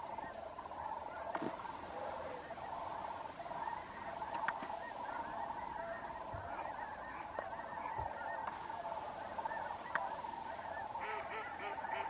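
Large mixed flock of sandhill cranes and snow geese calling: a continuous din of many overlapping calls, with a quick run of repeated calls near the end.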